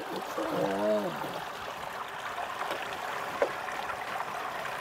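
Steady running water, with a short voiced sound from a person about half a second in and one sharp knock a little past three seconds.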